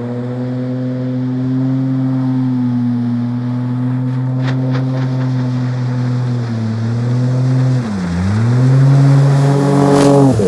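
Yamaha 40/30 jet outboard on a Hog Island SW16 skiff running hard on plane through shallow river water. The engine note holds steady, dips in pitch twice, then swells and drops sharply in pitch as the boat passes close by, with a rush of spray.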